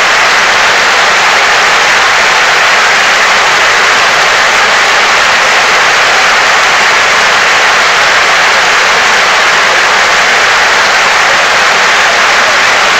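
Stadium crowd applauding steadily, a dense, even wash of clapping that holds at one level throughout.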